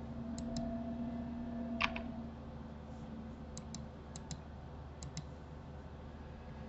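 Computer mouse and keyboard clicks: quick pairs of clicks four times, and one sharper single click about two seconds in, over a faint low hum that fades out around the same time.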